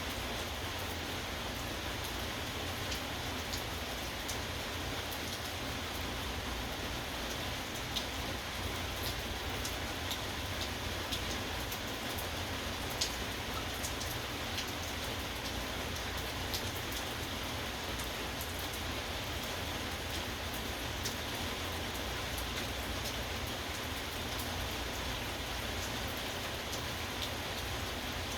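Steady rain falling, with the sharp ticks of individual drops hitting a hard surface scattered throughout.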